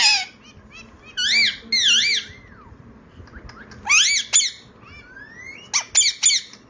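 Male Indian ringneck (rose-ringed) parakeet vocalizing in about five short, high-pitched squawky bursts with a warbling, up-and-down pitch, spaced roughly a second apart.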